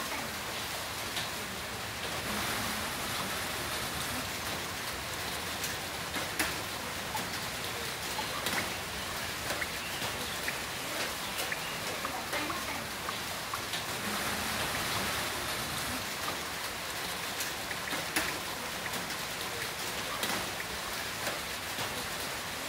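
Heavy rain falling steadily, a dense even hiss with many close drops striking as sharp ticks.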